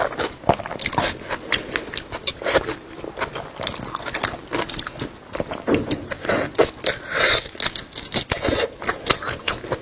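A person eating close to the microphone: wet chewing and biting with many sharp clicks, smacks and crackles. There are a few louder hissing stretches near the end as she bites and sucks at a piece held to her mouth.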